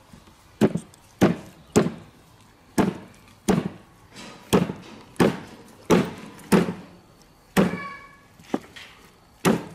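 A kitchen knife chopping repeatedly through a large fish's head on a round wooden chopping block: about a dozen heavy thunks, roughly one every two-thirds of a second.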